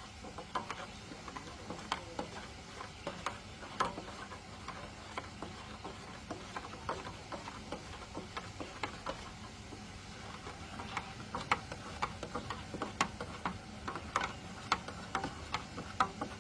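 Light, irregular clicks and clinks, a few a second, from containers and utensils being handled while milk is mixed for a baby elephant.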